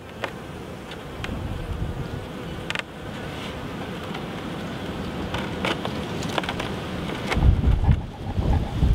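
Honey bees buzzing steadily around an open nuc hive, with a few light clicks as its wooden frames are handled. Heavy low rumbles on the microphone come in near the end.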